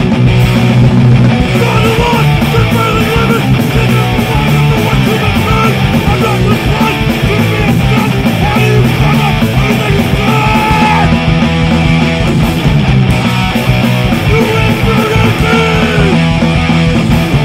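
Punk rock music: distorted electric guitars and drums playing steadily and loudly.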